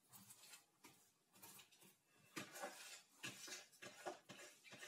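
Quiet, irregular scraping and rustling as a sweet cream mixture is scraped out of a bowl onto a heap of corn sticks.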